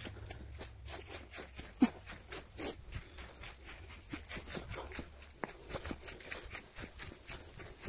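Footsteps crunching and rustling through dry fallen leaves on a forest trail, a rapid run of crackly steps.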